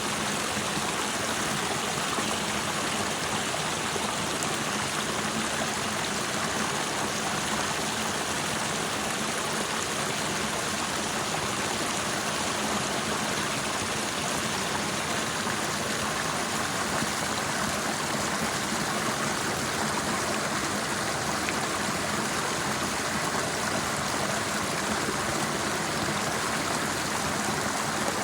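Running water from a stream, flowing in a steady, even rush.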